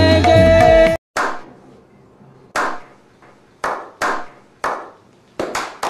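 Live band music with keyboard cuts off abruptly about a second in, followed by a slow clap: single hand claps that come faster and closer together toward the end.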